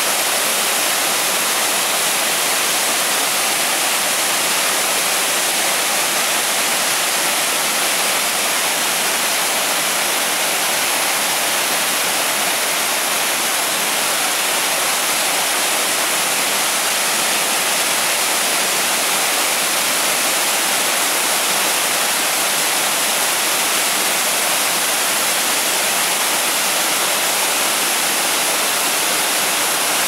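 Several thin streams of a small waterfall splashing down over mossy rock ledges into shallow pools, a steady rush of falling water that holds even throughout.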